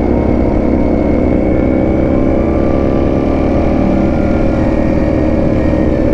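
Ducati Panigale V4 S's V4 engine running steadily at cruising speed, heard from on board the bike.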